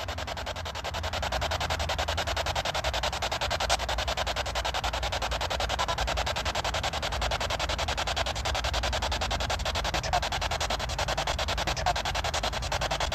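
Ghost-hunting spirit box sweeping through radio frequencies, played through a small handheld speaker: a fast, stuttering hiss of static with no clear words, getting slightly louder about a second in, over a steady low rumble.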